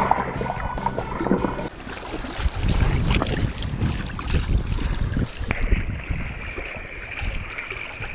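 Water sloshing and rumbling against a waterproof action camera's housing held in shallow sea water, muffled underwater at first and changing about two seconds in as the camera is at the surface.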